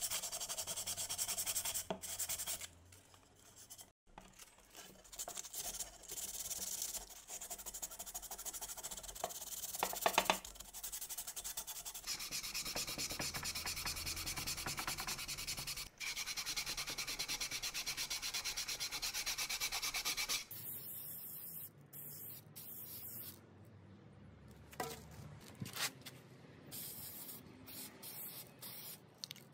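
Sandpaper rubbed by hand over the plastic motor housing of a Makita HM 0810 hammer drill in quick back-and-forth scrubbing strokes, pausing now and then. After about twenty seconds it gives way to quieter sounds with a few sharp clicks.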